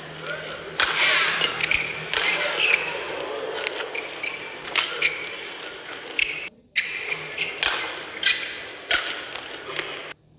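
Badminton rally: sharp racket hits on the shuttlecock about once a second, over the hum of the crowd in a large hall. The sound drops out briefly about two-thirds of the way through.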